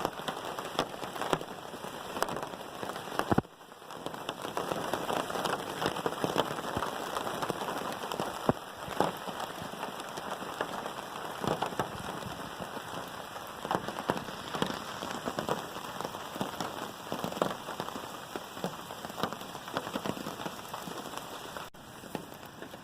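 Steady rain pattering on a hammock tarp overhead, with many single drops heard as sharp taps.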